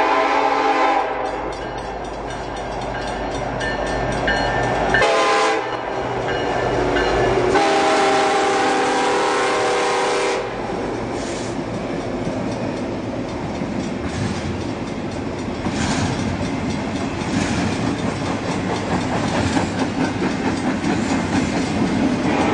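Union Pacific diesel freight locomotive sounding its chime air horn as it approaches: a blast ending about a second in, a short one about five seconds in and a longer one lasting about three seconds, with the diesel engine running underneath. The locomotive then passes and the intermodal well cars roll by, their wheels clacking rhythmically over the rail joints.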